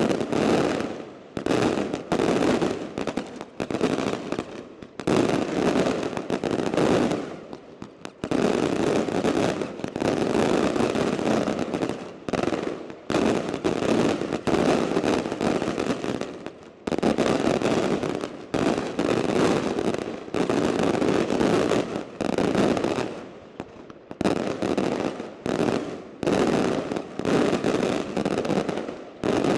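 Maltese daylight fireworks: aerial shells bursting overhead, each scattering many small bright reports, so the bangs run together into dense crackling volleys. The volleys come in waves of a few seconds each, with short lulls between them.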